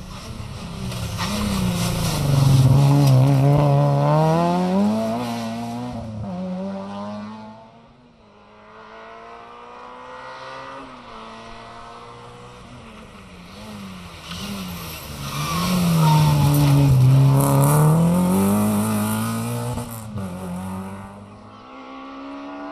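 Two rally cars, a Citroën Saxo and then a Citroën AX, driving hard past one after another on a tarmac stage. Each engine's note falls and then climbs again as it goes by. A third rally car, a Peugeot 205, is heard approaching near the end.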